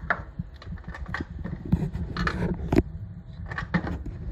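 Scattered light clicks and knocks of small metal parts being handled and fitted around an industrial sewing machine's feed dog and needle plate, over a low steady hum. The sharpest knocks come about two to three seconds in.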